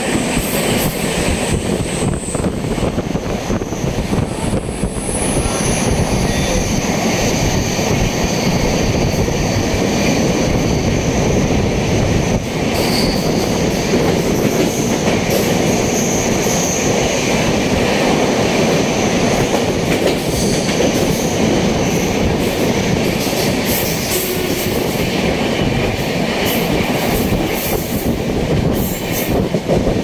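Train running on the rails: a steady loud rumble, with high-pitched wheel squeal coming and going through the middle.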